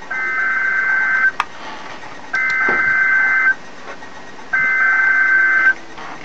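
Three buzzy two-tone data bursts from a NOAA Weather Radio broadcast, each about a second long and about a second apart. They are the SAME digital header that opens a weather alert or test message.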